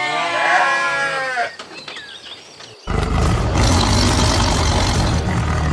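A loud, wavering livestock bleat lasting about a second and a half. About three seconds in, a loud steady low rumbling noise cuts in abruptly.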